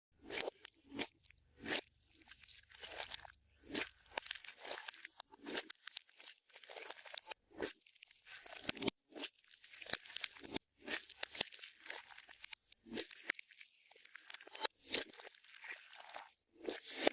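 Clear slime with makeup and glitter mixed in, being squished and worked by hand: a dense run of irregular crackles and pops from trapped air.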